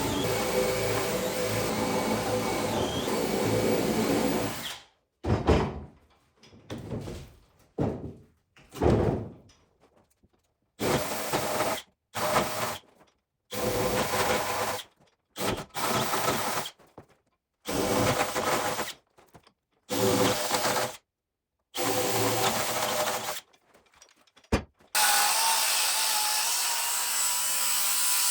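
Cordless drill running, first in a steady run of a few seconds, then in about a dozen short separate bursts, then in another steady run near the end.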